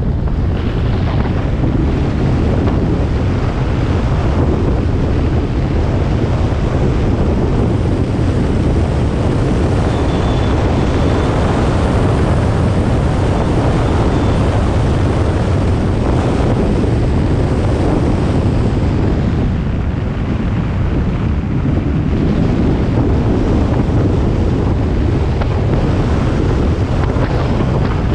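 Heavy wind noise buffeting the microphone of a camera mounted on the outside of a Hyundai Veloster N as it drives an autocross course at speed, loud and steady throughout, with the car's running mostly buried beneath it.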